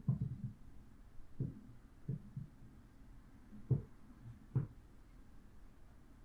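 A series of short, soft low thuds at uneven intervals, about six of them, with a louder cluster right at the start.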